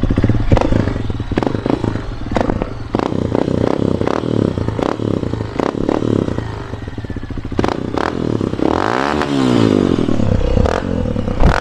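Honda CRF150's single-cylinder four-stroke engine revved above idle through an open Exos X6 exhaust with its silencer removed, with sharp crackles from the pipe. Near the end one rev climbs and falls back.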